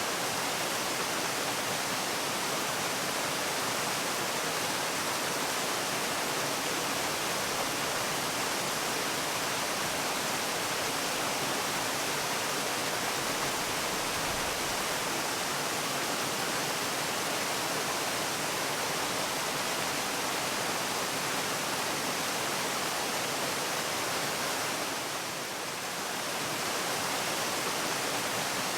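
Waterfall: water falling in a steady, even rush, dipping briefly in level near the end.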